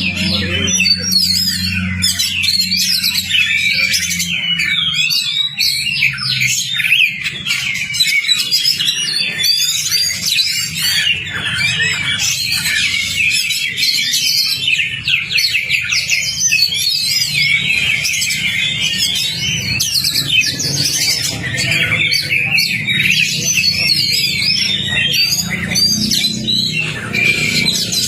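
Oriental magpie-robin (kacer) singing a fast, continuous, dense stream of varied chirps and whistles. It is a lure song, played to provoke other magpie-robins into singing.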